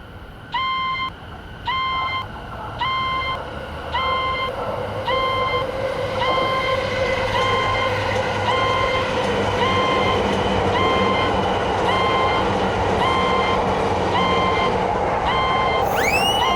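Japanese railroad crossing alarm ringing in an even repeated beat, about one ring a second. A passing train's running noise builds from about four seconds in and stays loud under the alarm.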